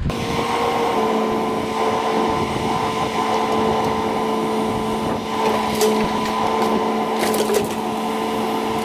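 Demolition excavator's engine and hydraulics working under load, a steady whine that comes up abruptly at the start. A few sharp cracks and snaps of breaking wood come near the end.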